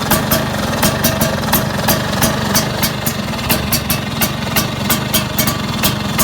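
Vespa PX two-stroke single-cylinder engine idling steadily through a big-box exhaust, with sharp ticks at an even pace of about three a second over it.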